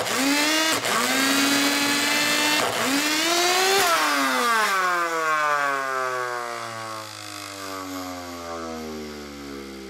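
Overvolted Dirt Devil Featherlite vacuum motor (a brushed universal motor) whining at high speed while burning at its brushes and commutator, with several sharp cracks that each briefly pull the pitch down. About four seconds in, the whine starts falling steadily as the motor winds down.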